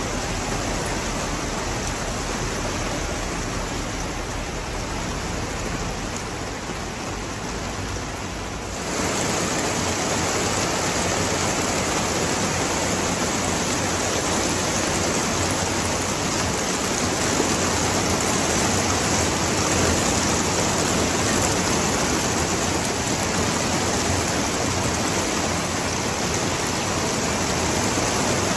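Steady heavy rain falling, a dense even hiss that grows louder about nine seconds in.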